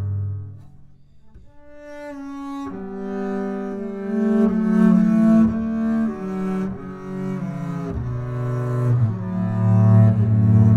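Solo double bass played with the bow: a slow melody of long sustained notes. A low note fades just after the start, a quiet high note enters, and the line climbs and then drops back to the low register about eight seconds in.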